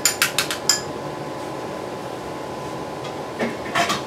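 A utensil scraping and tapping against a stainless steel saucepan, a quick run of about six clinks in the first second, then a few more clatters of kitchenware near the end.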